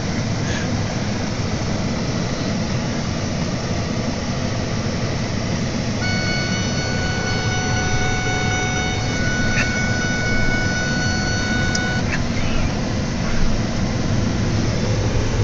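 Steady engine and road rumble heard from inside a moving vehicle's cab. About six seconds in, a steady high pitched tone starts abruptly, holds for about six seconds and cuts off.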